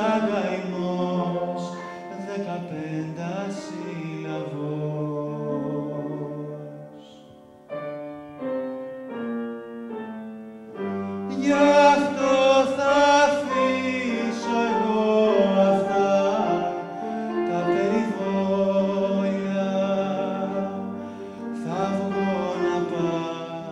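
Live music: a male voice singing a slow Greek song with instrumental accompaniment. Around the middle the music drops to a few sparse, separate notes, then swells back into a fuller passage.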